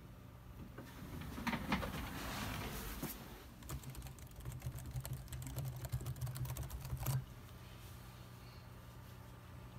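Rapid typing on a laptop keyboard: a dense run of key clicks from about three and a half seconds in that stops abruptly a little after seven seconds, after a brief burst of noise.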